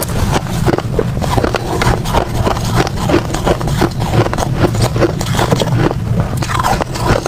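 Close-miked crunching and chewing of hard frozen ice: a rapid, continuous run of crisp cracks and crunches as the ice is bitten and ground between the teeth.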